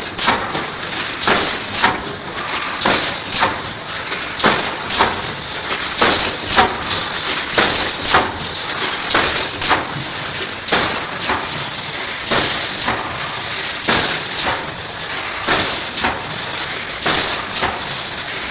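Mashtronics automatic wire mesh welding machine running, with a sharp clack about every 0.6 to 0.7 seconds as it welds and advances the mesh, over a steady high hiss.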